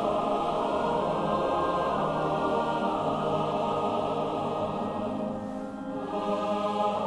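Background film score: a choir singing long held chords, easing slightly about six seconds in before moving to a new chord.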